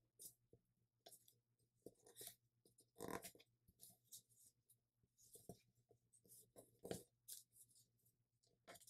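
Faint, intermittent rustling and crinkling of a sheet of letter paper being folded and creased by hand, with slightly louder crinkles about three seconds in and again near seven seconds.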